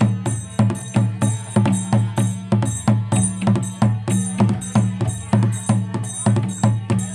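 Harmonium playing steady held notes with a regular percussion beat of about two to three strikes a second, each strike ringing bright and high.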